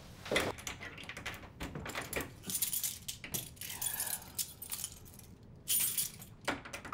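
A bunch of keys jangling, with scattered small clicks and knocks; the jingling comes in two louder spells, about halfway through and near the end.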